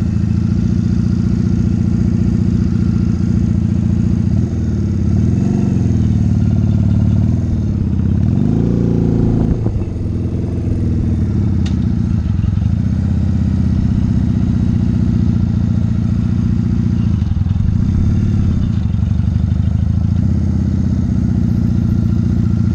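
1985 Honda Rebel 250's parallel-twin engine pulling away from a stop and riding at low speed. The engine note rises briefly twice, about four and about eight seconds in, and otherwise runs steadily at low revs.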